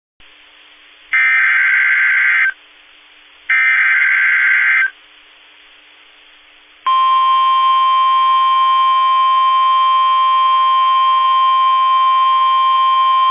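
Emergency Alert System alert tones ahead of a severe thunderstorm warning: two SAME digital header data bursts about a second and a half each, with faint hiss between them, then a loud, steady weather-radio warning alarm tone starting about 7 s in.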